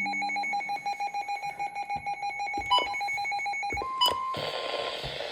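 A rapidly pulsing electronic ringing tone, like a telephone trill, that stops about four seconds in. It is followed by a couple of clicks, a short steady beep and a hiss of static.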